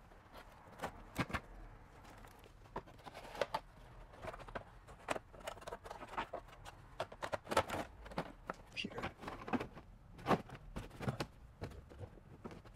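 Light, irregular clinks and knocks of thin sheet-metal heat shields being handled and fitted up against the underside of a BMW E60.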